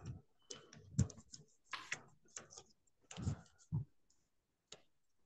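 A string of irregular sharp clicks and soft knocks, some duller and heavier than others, thinning out to a last single click near the end.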